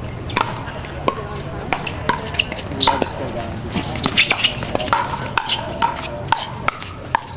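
Pickleball rally: paddles striking a plastic pickleball, a run of sharp pops at an uneven pace of roughly two a second, closer together about four seconds in.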